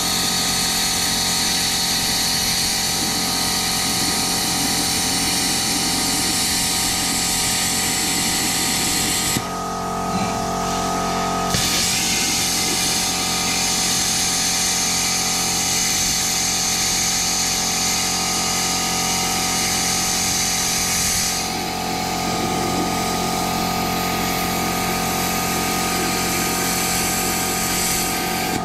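Plasma cutter cutting through the steel shell of a refrigerator compressor: a loud, steady hiss from the arc over a steady hum. The hiss cuts out for about two seconds roughly a third of the way in, then starts again.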